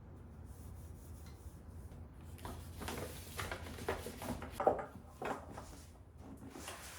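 Objects being handled: a quick run of light knocks and rubbing noises in the middle, the sharpest knock a little before the end.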